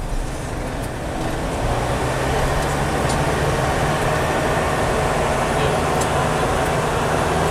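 Steady engine and road noise of a minibus on the move, heard from inside the cabin, with a low, even hum.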